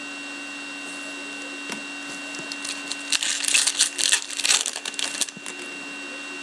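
Hockey card pack's foil wrapper being torn open by hand: about two seconds of crackling and crinkling starting about three seconds in, over a steady low hum.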